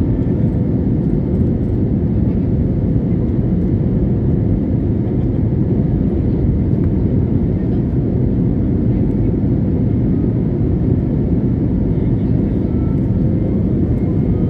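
Jet airliner in flight, heard from inside the cabin: a steady, even noise of engines and rushing air, heaviest in the low range.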